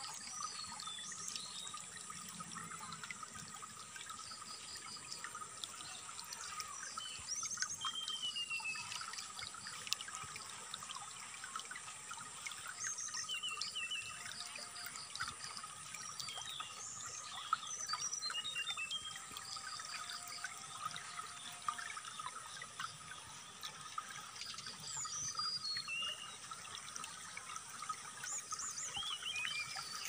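Water trickling and flowing steadily, with a brown-chested jungle flycatcher (sikatan rimba dada coklat) singing over it in scattered high chirps, short slurred notes and quick runs of repeated notes.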